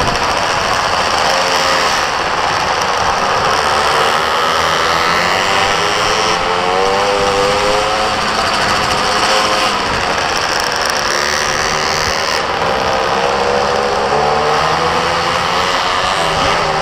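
Mini moto's small engine revving hard as it is ridden around the track. Its pitch climbs and drops twice, with a constant rush of wind and tyre noise.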